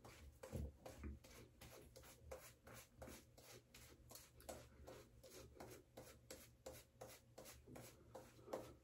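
Faint, quick, repeated swishing of a boar's hair shaving brush working a very wet lather onto the face and neck, one short stroke after another at about four a second.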